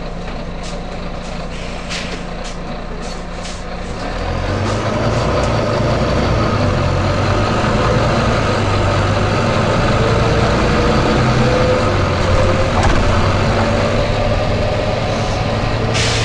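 Volvo B9TL double-decker bus idling with several short air hisses, then pulling away about four seconds in, its six-cylinder diesel working harder with a slowly rising whine. A sharp air hiss comes near the end.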